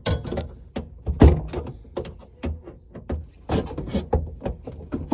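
Irregular knocks, clunks and clicks of pliers and lines being worked and tugged against the cabinet under a sink. The loudest knock comes a little over a second in.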